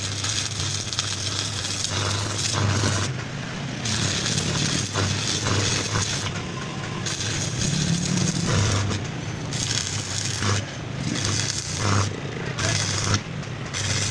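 Electric arc welding: a crackling sizzle in short runs that start and stop every second or so, over a low buzz from the welding set.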